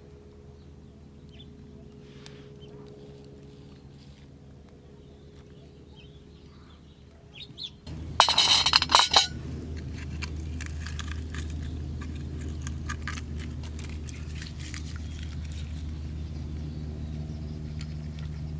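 Red sea urchins being handled on a plastic bag: a loud crinkling rustle lasting about a second a little before halfway, then scattered clicks and light rustles as the spiny urchins are picked up and set down, over a steady low hum.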